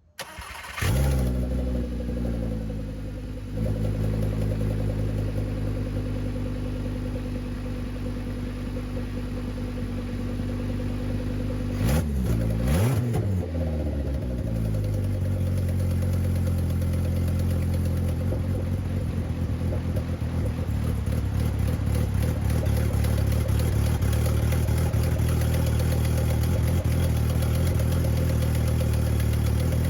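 Turbocharged VW 07K 2.5-litre inline five-cylinder engine starting suddenly and settling into a steady idle, with one brief rev about twelve seconds in before it idles on. It is not running very well, which the owner thinks may be down to the alternator not putting out.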